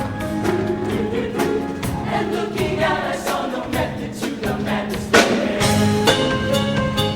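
High school show choir singing with its live band, over a regular drum beat. The music swells and gets louder about five seconds in.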